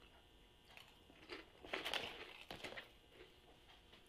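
A potato chip being chewed: a run of soft, crisp crunches, the loudest cluster about two seconds in.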